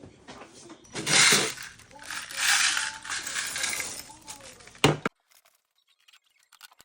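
Loose plastic LEGO pieces clattering and rattling, with a sharp clack near the end before the sound cuts off.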